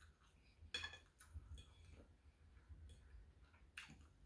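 Near silence broken by a few faint clicks and taps of a metal fork against a ceramic plate while eating, the sharpest about a second in, with softer clicks later.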